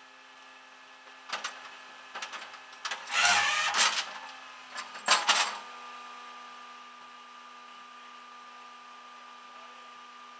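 Metal clicking and rattling as a tie-down is fastened at a car's rear wheel on a flatbed tow truck: scattered clicks, then a louder rattling burst a few seconds in and a last pair of clicks, over a steady hum.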